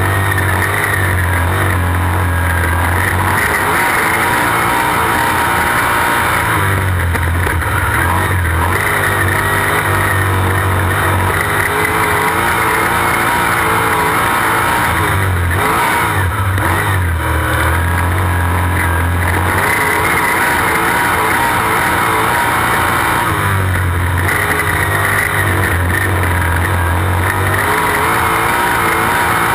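Sprint car engine at racing speed, heard from inside the open cockpit: a loud, unbroken engine note mixed with wind noise. Its deep low end swells and fades every few seconds, lap after lap.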